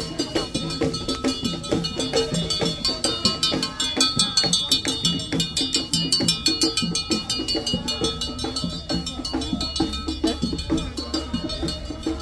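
Percussion music at a fast, steady beat: drums with bright, ringing metallic strikes over them.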